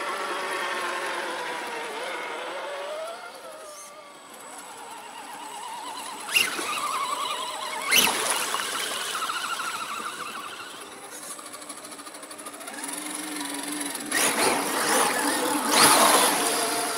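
Radio-controlled scale trucks driving through mud and water: electric motor and gear whine rising and falling with the throttle, with a few sharp knocks and churning splashes as the tyres dig through the mud, busiest near the end.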